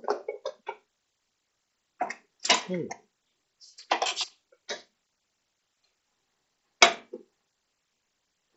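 A person's voice in four brief bursts of short murmurs and throat noises, the last a single sharp cough about two-thirds of the way in, with dead silence between them.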